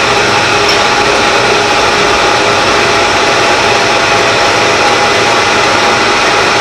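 Harrison 21x60 metal lathe running under power feed, its tool taking a cut along a long metal bar and peeling a big chip. Steady whine of several tones over an even rough cutting noise.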